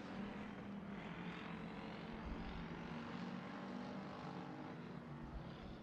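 Hobby Stock race car engines running on the dirt track, a faint, steady drone.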